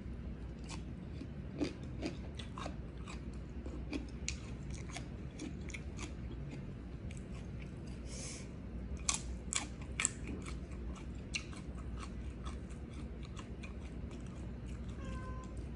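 Close-up eating sounds: a person chewing a mouthful of rice and vegetables, with many small wet clicks and crunches throughout and a few louder ones about nine to ten seconds in.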